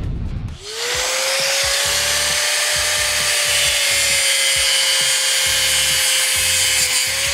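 Corded electric angle grinder spinning up about half a second in, then grinding metal under load: a steady high whine over the hiss of sparks.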